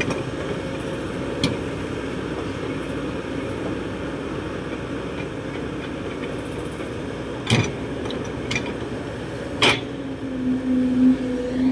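Kobelco SK200-8 excavator's diesel engine running under load as the bucket digs into soil, with a few sharp clanks from the bucket and its linkage, the loudest two about two seconds apart near the middle. A steady low hum comes up near the end as the arm works harder.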